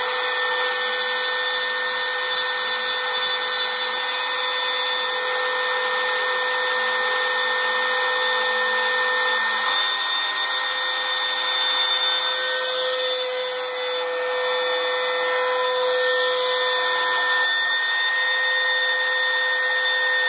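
Wood router on a homemade CNC machine, its 1/4-inch bit carving letters into a pine board. The motor keeps up a steady high whine over the cutting noise, and its pitch shifts slightly now and then as the load on the bit changes.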